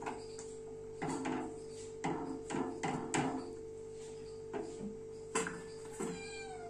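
Spatula scraping and knocking against a stainless steel kadai as thick milk rice pudding is stirred, in short strokes about once a second, over a steady hum.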